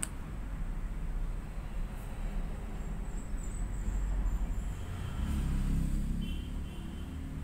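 Low, steady background rumble that swells for a second or so near the end, with a sharp click right at the start.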